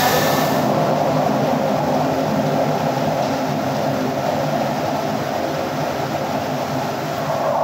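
Web offset newspaper printing press running at speed: a steady, loud mechanical din of rollers and printing units with the paper web feeding through.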